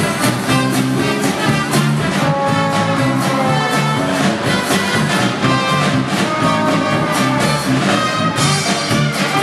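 Brass-led band music with a steady beat, trumpet and trombone to the fore.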